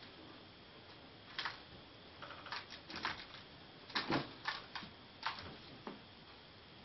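A cat batting at a small toy hanging from a wooden cabinet door, its paws and claws and the toy knocking against the wood in irregular light taps and clicks, loudest about four seconds in.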